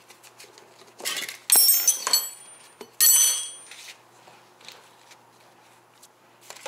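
Metal tyre-changing tools clinking against an electric-scooter wheel while a tight tyre is being worked onto the rim. A short scrape comes about a second in, followed by three sharp, ringing metal clinks, the last and loudest about three seconds in.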